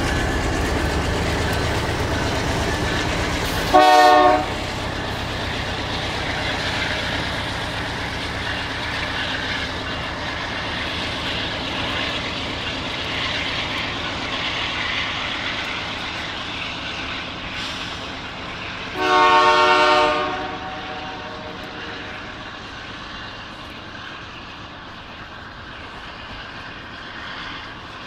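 Canadian Pacific freight locomotive's air horn sounding twice: a short blast about four seconds in and a longer one of about a second and a half near the middle. Under it runs the steady rumble of the passing tank-car train and the car's own road noise, fading gradually near the end.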